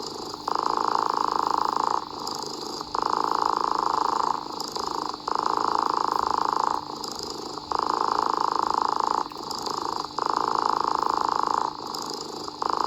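Cat purring in a steady rhythm: five louder stretches of about a second and a half each, with softer breaks between them.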